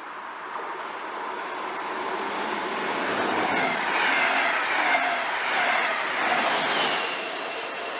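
A train passing along the track: the rail noise builds over the first few seconds, is loudest around the middle with tones sliding down in pitch as it goes by, then eases off near the end.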